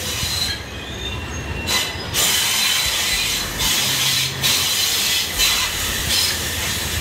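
Passenger train running over a wooden trestle viaduct, heard from a carriage window: a steady wheel-and-rail rumble with a high wheel squeal over it. It gets louder about two seconds in.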